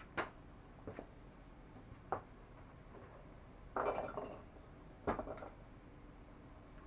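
Metal tools and hardware clinking as they are handled: three single sharp clinks, then two short clattering rattles a little past the middle.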